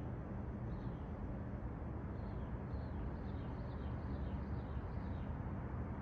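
A bird chirping a series of short, falling notes, over a steady low rumble.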